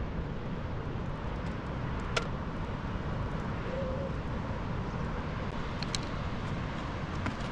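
Steady rushing outdoor noise, heaviest in the low end, with a few faint clicks.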